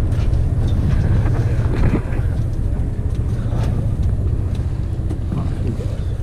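Fishing boat's engine running with a steady low rumble, with wind buffeting the microphone.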